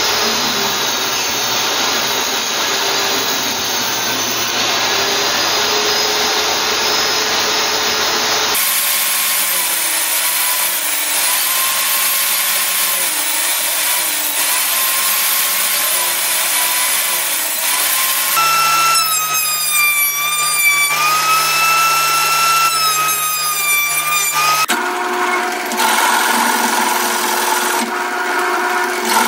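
Benchtop table saw ripping pallet wood into thin strips. Its motor whine dips and recovers as each board is fed, across several cut-together takes. In the last few seconds a drill press runs instead.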